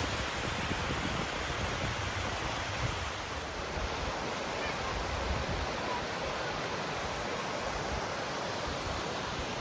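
Steady rushing of a small waterfall and its stream of falling water.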